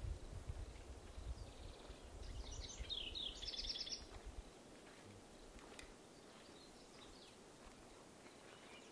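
A small songbird's quick series of high chirps, lasting about a second and a half, over a faint low rumble that dies away about four and a half seconds in; afterwards only faint forest background.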